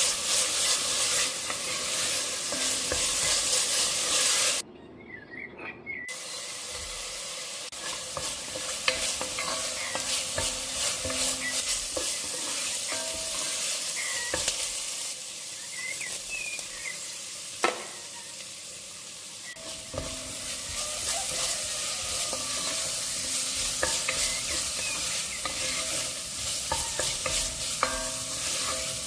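Food frying and sizzling in hot oil in a pot while being stirred, with frequent small clicks and knocks of the utensil against the pot and one sharper knock past the middle. The sizzle drops out for a second or so about four and a half seconds in, then resumes.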